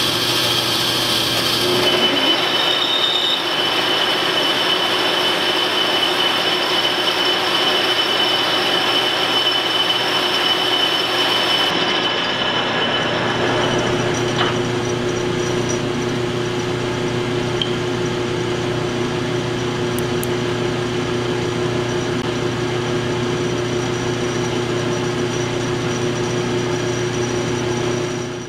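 Metal lathe running steadily, its spindle and gearing giving a continuous whine, while a carbide insert takes a turning cut along a steel shaft.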